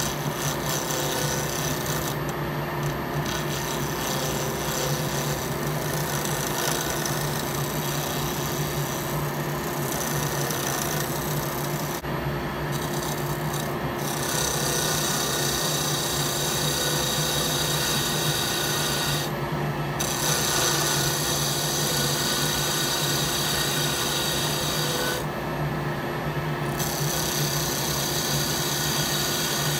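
Wood lathe spinning a red eucalyptus handle blank while a hand-held turning chisel cuts it: a steady scraping hiss of shavings being peeled off over the lathe's motor hum. The cutting sound drops out briefly a few times as the tool comes off the wood.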